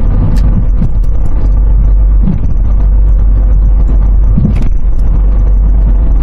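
Steady engine and road rumble heard from inside a Hyundai Grand Starex van's cabin while it drives along.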